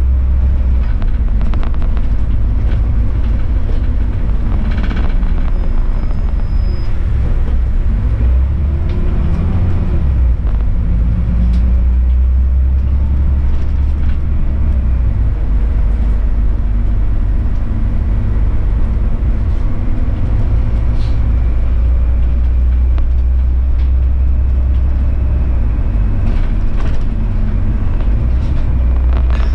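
City bus driving along a snowy road: a steady low rumble of engine and tyres, with occasional light clicks and rattles.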